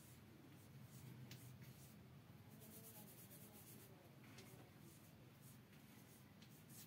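Faint chalk scratching on a blackboard, in short strokes, as a word is written.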